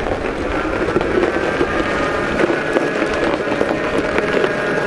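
Electric drive of a converted antique Massey-Harris tractor, a NetGain Warp 9 motor on 48 volts, running with a steady whine as the tractor rolls over gravel, tyres crunching with many small crackles.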